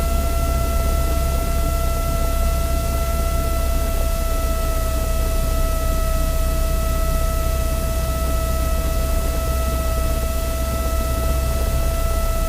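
Light aircraft engine running steadily in the cockpit: a constant low drone with even hiss and a steady high whine that does not change in pitch.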